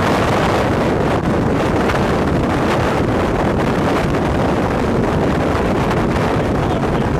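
Strong wind buffeting the microphone: a loud, steady rushing and rumbling that does not let up.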